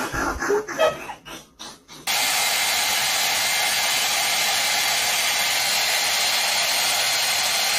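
Hand-held hair dryer blowing a steady rush of air, starting abruptly about two seconds in and holding at one level, with a faint whine in the rush.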